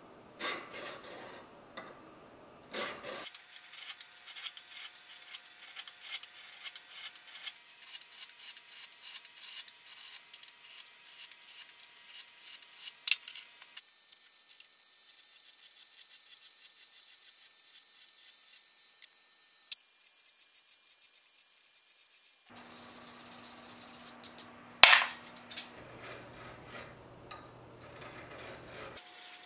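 A flat hand file scraping across a steel knife blade in quick repeated strokes, a few a second, as the flats and bevel are filed smooth. There is one sharper, louder scrape near the end.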